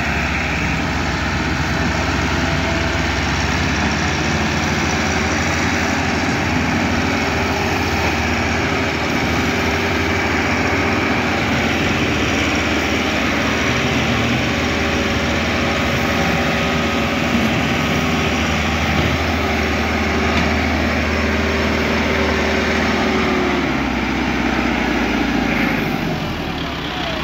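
Massey Ferguson 385 tractor's four-cylinder diesel engine running steadily under heavy load, hauling a sugarcane trolley heavy enough to lift the tractor's front wheels off the ground. The engine note eases off briefly near the end.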